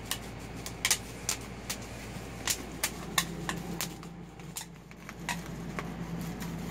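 Bubble wrap popping as a dog bites along a strip of it: sharp, irregular pops, a few a second, with a sparser stretch in the middle.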